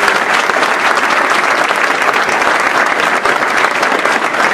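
An audience applauding: many people clapping at once, loud and steady.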